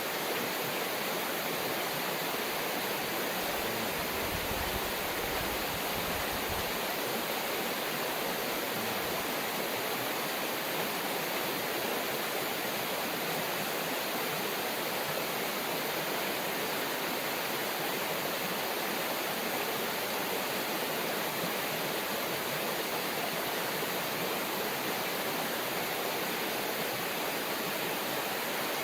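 River water rushing steadily over rocks, an even, unbroken roar.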